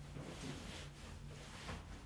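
Faint rustling of clothing as a man gets up and bows: a few short swishes, over a low steady room hum.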